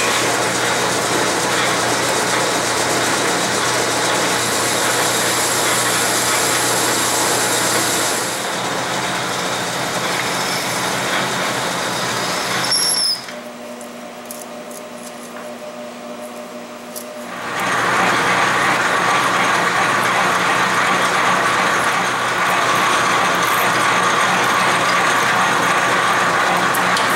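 Metal lathe running and turning a small metal part with a cutting tool, a steady machining noise. Midway it drops to a quieter hum for about four seconds, just after a brief squeal, then the lathe runs and cuts again.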